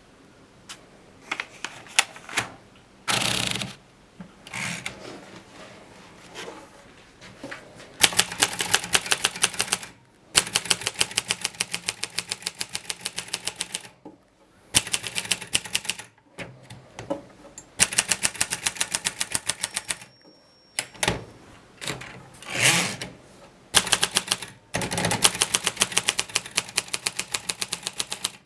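Kolibri Groma portable typewriter being typed on: runs of quick mechanical key strikes at about nine a second, broken by short pauses and a few louder single clacks and sliding noises. A brief ringing tone sounds once about two-thirds of the way through.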